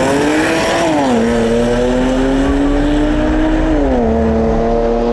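Drag-racing car's engine under full-throttle acceleration down the strip, its pitch climbing and dropping sharply at two upshifts, about a second in and near four seconds in, then rising slowly again.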